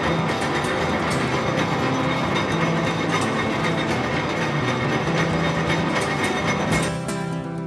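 Metal lathe running with a steel shaft spinning between centres, giving a steady mechanical clatter and gear whir. Guitar music comes in near the end.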